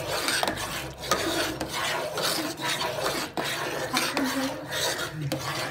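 Steel ladle scraping around an aluminium pot while stirring cooking pineapple jam, in repeated rasping strokes about two a second.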